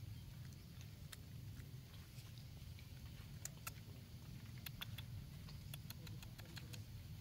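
Quiet outdoor background with a steady low rumble and scattered faint sharp clicks, most of them in the second half.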